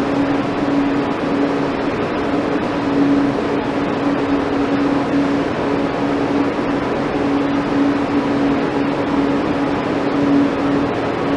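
Steady machine hum with a constant mid-pitched tone over an even hiss, unchanging throughout.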